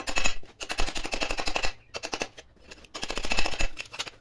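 A hand hammer rapidly tapping a thin steel sheet-metal patch against the edge of a vise, folding over its edge to form a flange. The taps come quickly in three runs, broken by short pauses a little under two seconds in and just before three seconds.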